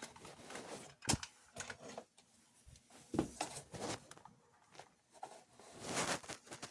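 Small clicks, taps and rustles of hands handling a wire end and tools at a workbench, with a short hiss about six seconds in, while getting ready to tin the wire with solder.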